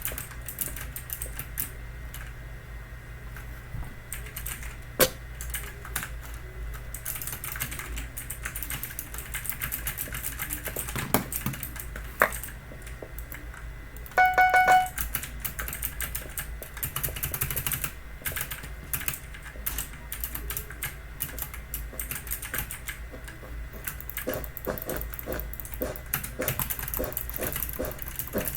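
Typing on a Logitech mechanical keyboard with clicky blue-style switches: a fast, irregular run of sharp key clicks. About halfway a short series of electronic beeps cuts in for about a second.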